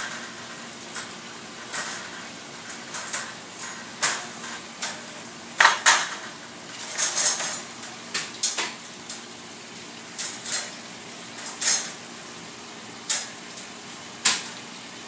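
Carlson Compact and Secure Deluxe folding metal wire dog crate clinking and clanking as it is handled, with irregular knocks of the wire panels, some ringing briefly.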